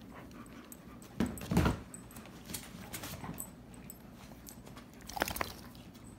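German Shepherds making short dog vocal sounds while play-fighting up close: one about a second in and another about five seconds in, with light clicks in between.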